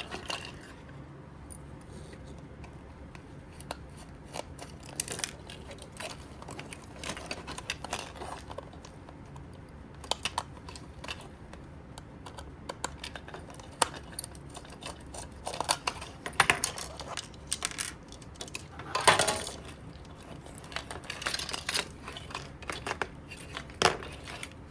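Screwdriver work and handling of a plastic toy projector's parts being taken apart: scattered small clicks, ticks and knocks of plastic and metal, with one longer scrape about two-thirds of the way through.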